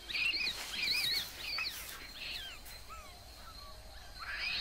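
Birds singing: quick, repeated wavering whistled phrases, fainter after about two seconds, with a rising call near the end.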